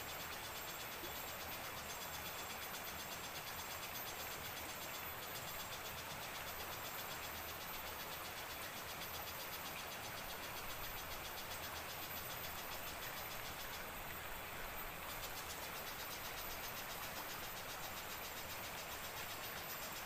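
Steady chorus of forest insects: a fast, high, pulsing trill over a constant hiss, letting up briefly about fourteen seconds in.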